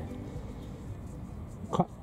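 Steady wind noise on the microphone, an even rushing hiss with no distinct events, and a brief bit of a man's voice near the end.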